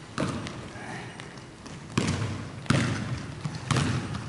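A basketball bouncing on a hardwood gym floor, four irregular thuds that echo around the hall.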